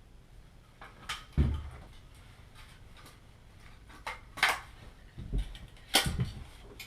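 Scattered knocks, thumps and scraping clatter from hand work on building materials and tools, with two heavier thumps about a second and a half in and again about six seconds in.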